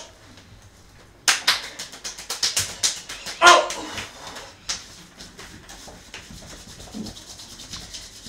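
A woman's voice crying out in a short yelp-like wail about three and a half seconds in, over a rapid run of sharp smacks, several a second, lasting a few seconds.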